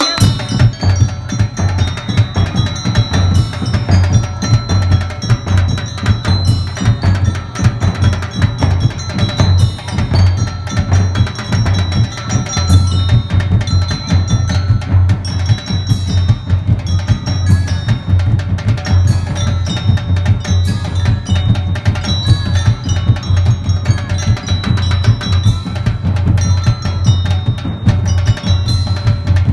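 Drum and bugle corps percussion section playing a steady, driving beat on bass drums and snare drums, with bell-like notes from mallet percussion on top.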